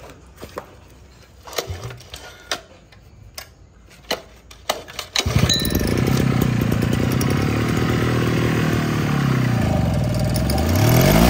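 A Mitsubishi 43 cc two-stroke engine is handled and pull-started, with a few knocks and clicks. About five seconds in it catches and runs steadily. Its speed drops briefly near the end, then it revs up again.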